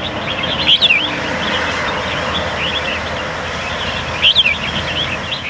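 Caged red-whiskered bulbuls singing short whistled, gliding phrases, loudest about a second in and again near the end, over a steady rushing background noise.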